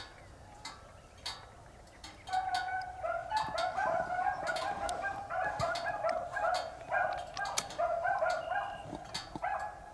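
Beagles giving tongue on a rabbit's track, a quick run of short, repeated chop-mouth barks, starting about two seconds in.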